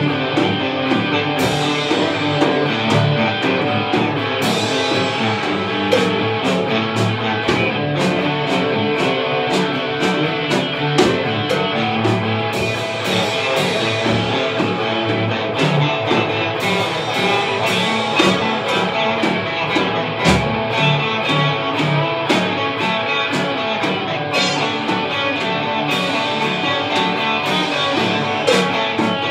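Instrumental rock played live: two electric guitars, one a Stratocaster-style and one a single-cutaway Les Paul-style, over a Gretsch drum kit keeping a steady beat with cymbal hits.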